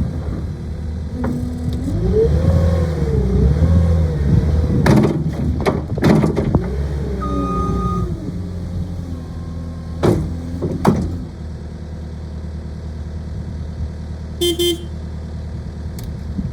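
Cat 259D skid steer's diesel engine running under working load, its pitch swinging up and down several times as the machine is worked. Several sharp clanks come through, and there is a short beep near the end.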